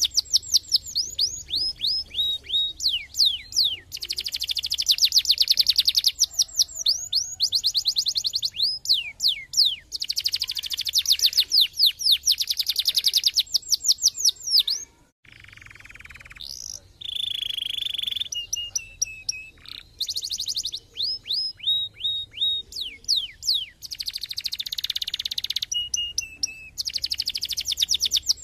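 Domestic canary singing: long, fast trills of repeated notes alternating with runs of quick downward-sweeping whistles. The song breaks off for about a second halfway through, then resumes.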